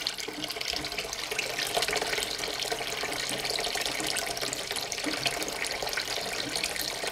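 Kitchen tap running at a steady flow, the stream splashing into a plastic washing-up bowl of water.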